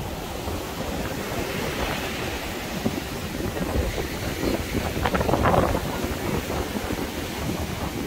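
Wind buffeting the microphone over the wash of surf, a little louder about five seconds in.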